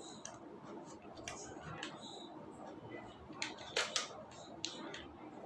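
Faint clicks and light scrapes of small tripod-head parts being handled and fitted together, with a few sharper clicks a little past the middle.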